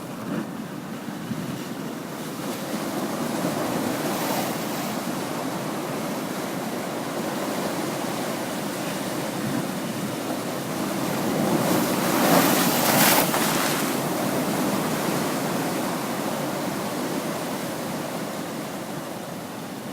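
Pacific Ocean waves crashing and washing against rocky sea cliffs: a steady roar of surf that swells, peaks in a loud crash about twelve to thirteen seconds in, then eases off. Wind buffets the microphone.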